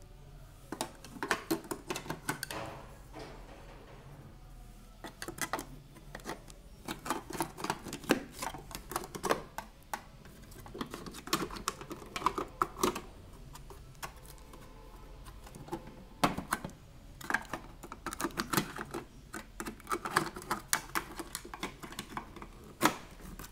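Hard plastic parts of a new juicer being handled and fitted onto its body: bursts of quick clicks and clatter with short pauses between them.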